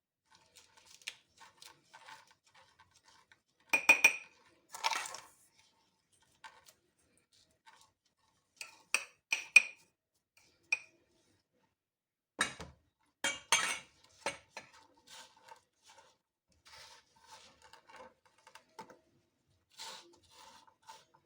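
Cutlery and kitchenware clinking and knocking against dishes: a few sharp strikes with a short ringing tail, a quick run of clinks about halfway, and lighter tapping and scraping in between.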